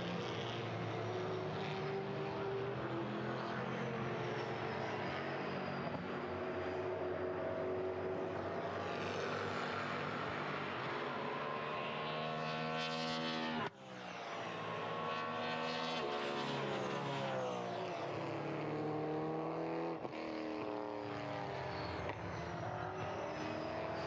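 V8 touring race car engines at racing speed, the note repeatedly climbing as they accelerate through the gears and falling away on braking and downshifts. The sound breaks off sharply for a moment about 14 seconds in, then comes back.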